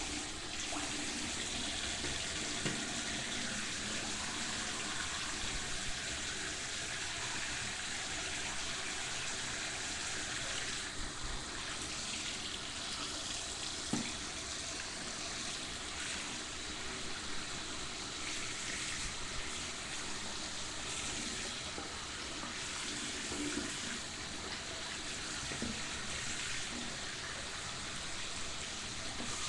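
Bathroom sink tap running steadily into the basin, with a couple of small knocks about 3 and 14 seconds in.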